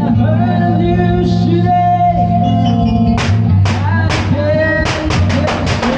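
Karaoke backing track playing: held keyboard chords, then drum hits come in about three seconds in, with a quick run of hits near the end.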